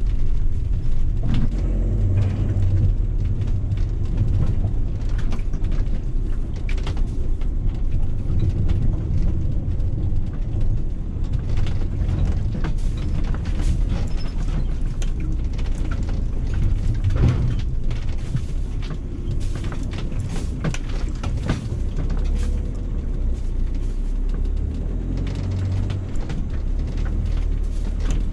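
Motorhome cab noise while driving slowly over a bumpy gravel and dirt track: a steady low rumble of engine and tyres, with frequent rattles and knocks as the vehicle jolts over the rough surface.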